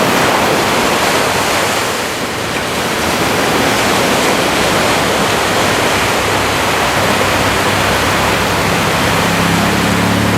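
Ocean surf breaking and washing up the beach, a loud, steady rush of noise. A low steady hum comes in over it during the last few seconds.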